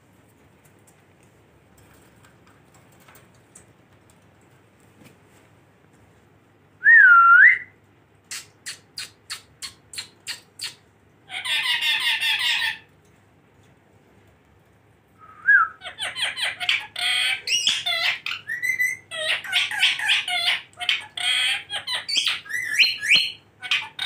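Indian ringneck parakeets calling. After a quiet start there is one loud whistled note about seven seconds in, then a quick run of short sharp calls, about four a second. A harsh screech follows, and from a little past the middle a long bout of repeated harsh squawking and chattering.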